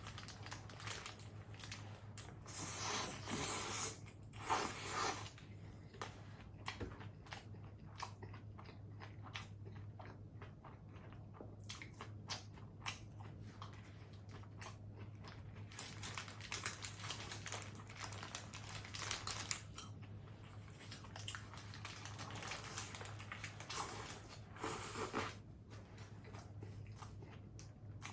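Close-miked mukbang eating of fast-food burgers and fried chicken nuggets: bites, crunching and chewing, with a few louder crunchy stretches a few seconds in and again near the end. A steady low hum runs underneath.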